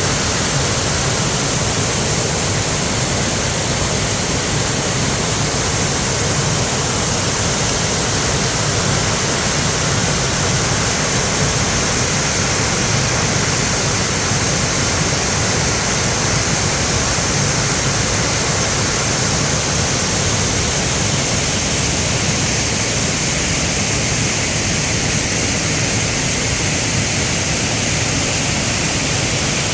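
Mountain valley stream rushing hard over rocks in one steady, loud sound of water. It is running high, which the uploader puts down to the rain.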